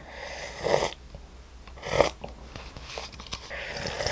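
A person slurping very hot, chili-oil broth straight from a paper cup-noodle bowl, in about three noisy slurps.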